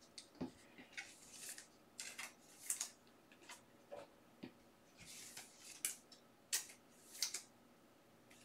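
Hockey trading cards being handled and sorted on a table: a dozen or so short, soft swishes and light ticks as cards are slid and set down.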